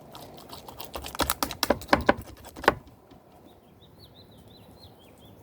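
Thick homemade slime squeezed and worked in the hands, giving a quick run of wet clicks and pops for the first three seconds or so. A bird then chirps a fast series of high notes near the end.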